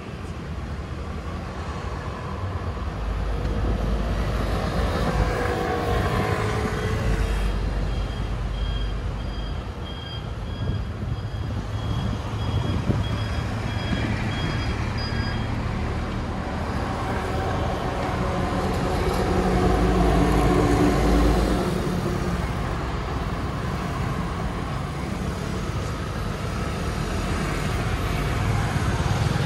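Street traffic at an intersection: scooter and car engines passing, with a heavier vehicle's low rumble. A rapid, evenly repeating high beeping sounds for several seconds about a third of the way in.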